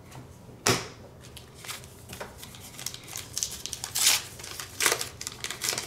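Foil card-pack wrapper being handled and slit open with a small blade: scattered crinkling and short rips, the loudest about four seconds in.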